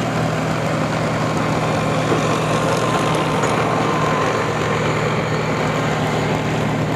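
Heavy engine of a pulling truck or tractor running steadily at an even speed, without revving up or down.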